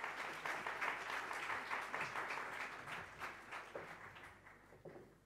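Audience applauding, the clapping dense at first, then thinning into a few scattered claps and dying away near the end.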